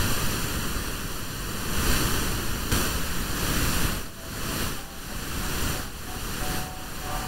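Radio static from a satellite receiver being tuned: a loud hissing rush that swells and dips about once a second. Faint musical tones start to come through near the end as the signal clears.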